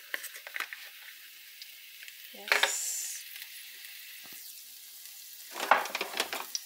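Chopped garlic sizzling in hot oil in a frying pan, a steady high hiss. A short, louder burst of sound comes near the end.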